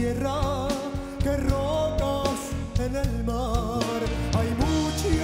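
Male singer's flamenco-tinged voice holding long, ornamented notes with a wide vibrato, over instrumental accompaniment with a steady low pulse.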